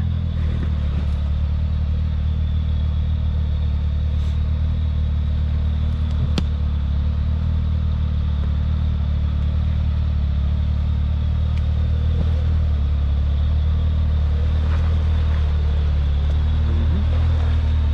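Side-by-side UTV engine idling steadily with an even low hum, one sharp click about six seconds in.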